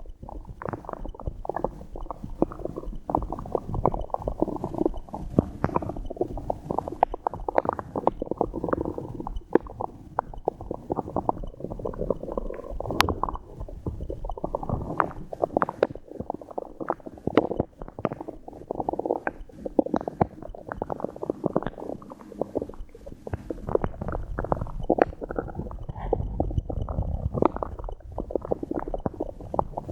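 A woman's stomach gurgling and rumbling without a break, with many quick bubbling crackles, from water and swallowed air moving in the belly.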